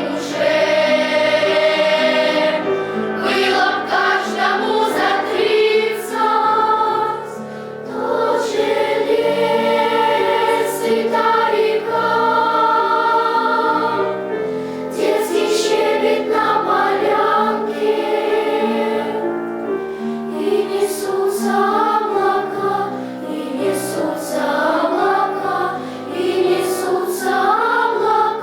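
Children's choir singing a song in Russian, with piano accompaniment.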